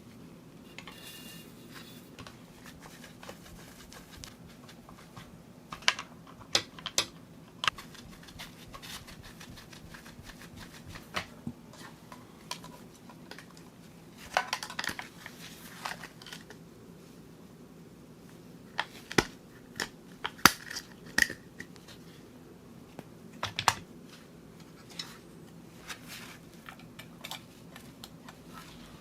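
Hands handling small computer parts: scattered sharp clicks and knocks in a few short clusters, with a brief crinkling rustle midway, over a faint steady low hum.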